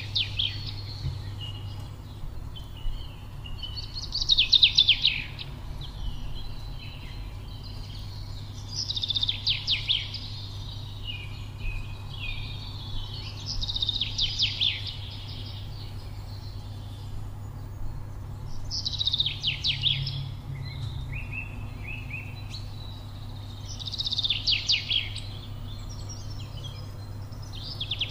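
A songbird singing a short, rapid, trilled phrase about every five seconds, with softer chirps between, over a steady low background hum.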